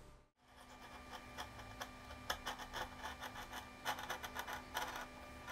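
A wood chisel scraping in short, irregular strokes along a crack in a wooden reed pan, lifting small wood shavings.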